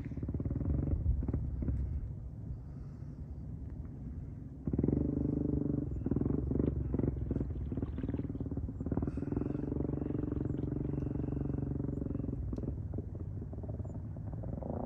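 A vehicle engine across the water being gunned at high revs, running steadily and jumping louder about five seconds in.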